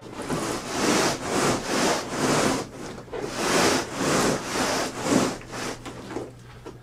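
Heavy 350-pound wooden shipping crate being pushed and rocked across the floor, scraping and rubbing in repeated strokes about two a second, easing off after about five seconds.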